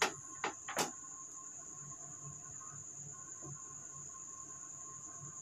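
Quiet room background with a steady high-pitched whine and a fainter lower tone, broken by four sharp clicks or taps within the first second.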